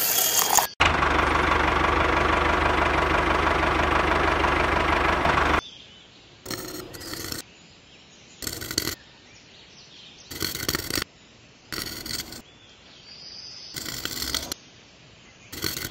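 Small electric motor of a toy concrete mixer running steadily for about five seconds, then cutting off abruptly. After it come several short, separate scrapes of a miniature shovel scratching lines in sand.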